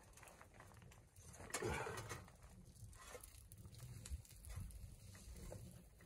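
A faint animal call about a second and a half in, over a low steady background rumble.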